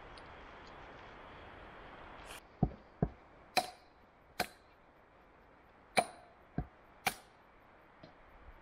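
A hand tool striking wood: about seven sharp, unevenly spaced wooden knocks starting a little over two seconds in, some dull thuds and some higher cracks.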